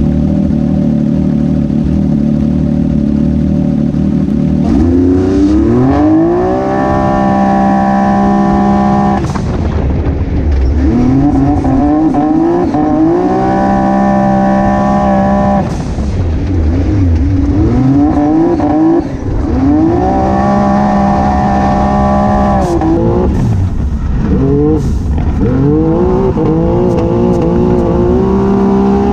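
Can-Am Maverick X3's turbocharged three-cylinder engine heard from inside the cockpit. It runs at a steady low note on the start line for about four seconds, then launches. After that it repeatedly climbs in pitch, holds a steady high note, and drops off as the driver lifts, about four times.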